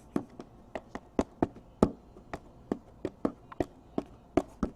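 A quick, uneven series of light taps or clicks, about fifteen in under five seconds.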